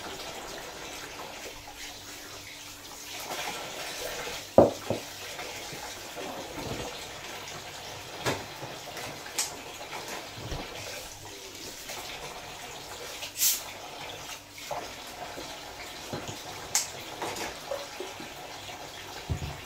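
Tap water running steadily into a kitchen sink while fish are cleaned under it, with scattered sharp knocks and clicks from handling the fish and tools against the sink; the loudest knock comes about four and a half seconds in.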